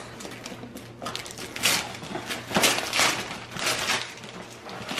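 Gift wrap, tissue paper and cardboard gift boxes rustling and crinkling as presents are unwrapped, in a run of short rustles.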